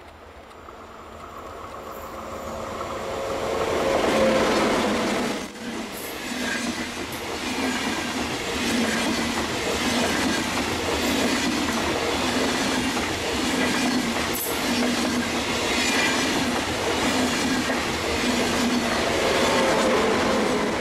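A freight train passing close by: it grows louder over the first four seconds, then its wagons roll past with a steady clatter of wheels beating about once a second.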